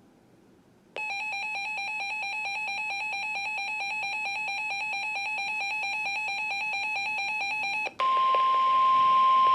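Weather radio alert: an electronic alarm beeping in a rapid, even pulse for about seven seconds. About eight seconds in it gives way to the NOAA Weather Radio 1050 Hz warning alarm tone, one steady tone that signals an incoming warning.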